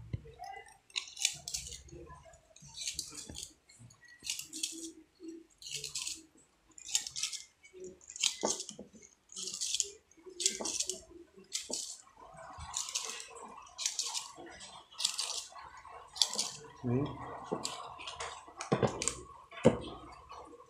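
Enamelled wire being hand-wound into a ceiling fan stator coil: a short rasping swish about once a second as each turn of wire is drawn through. A faint steady hum joins about two-thirds of the way in.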